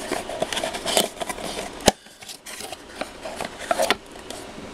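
A cardboard mug box being handled and opened by hand: rustling, scraping and small clicks, with one sharp knock about two seconds in.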